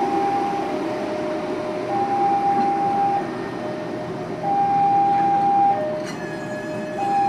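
Railway level-crossing warning alarm sounding a two-tone high-low signal, each tone held about a second. Underneath it is the rumble of passenger carriages rolling past on the track. A fainter, higher tone joins about six seconds in.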